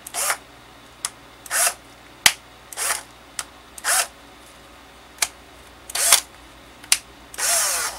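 Milwaukee M12 2407-20 cordless drill motor given six short spins on the trigger. Each is a brief whir that winds up and back down, and sharp clicks come in between. This is a functional test of the freshly cleaned trigger switch.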